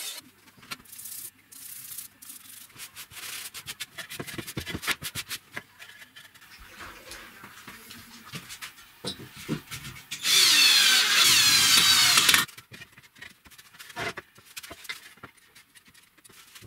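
Wooden boards being handled on a workbench, with scattered knocks and clicks. About ten seconds in, a loud power tool runs with a wavering whine for about two seconds, then cuts off.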